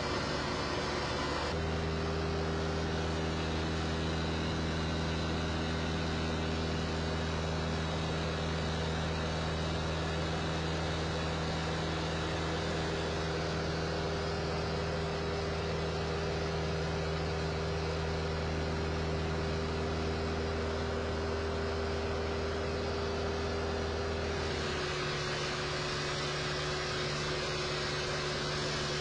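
Diamond DA40 light aircraft's piston engine and propeller droning steadily in cruise, heard inside the cabin over a rush of air noise. The pitch of the drone shifts abruptly about a second and a half in and again near the end.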